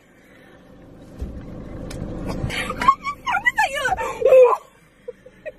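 Car interior road and engine rumble, building over the first couple of seconds, then a short stretch of drawn-out voice sounds, an exclamation or snatch of singing, about halfway through.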